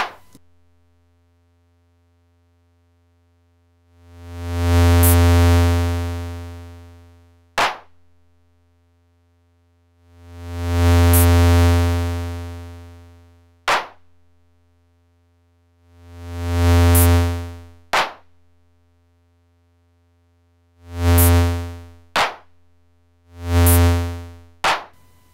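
Eurorack modular synthesizer voice, a low tone rich in overtones, shaped by a Make Noise Contour envelope. It plays five swells that rise and fade away, the last two shorter and closer together. A short blip sounds just as each swell ends, where the envelope completes and its end-of-contour trigger fires. A faint steady low hum sits underneath.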